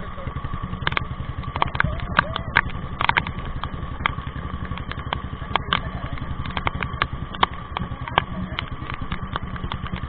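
Motorcycle engines running at low speed side by side: a steady, rapid, even low pulsing of single-cylinder exhausts, with scattered sharp taps over it.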